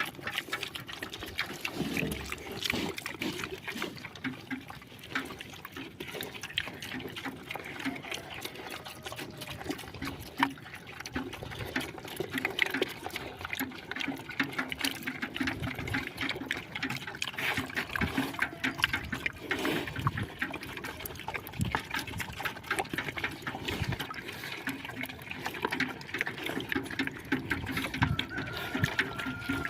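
Water trickling and dripping, with many small irregular drips and clicks.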